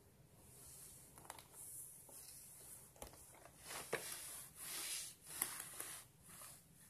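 Cardboard retail box being handled and turned over on a cloth surface: faint rubbing and sliding swishes with a few light knocks, busiest in the second half.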